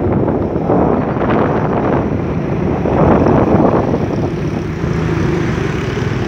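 Wind buffeting the microphone while riding along a road, over the low hum of a vehicle engine. About four seconds in the gusts die down, leaving a steadier engine hum as the vehicle slows in traffic.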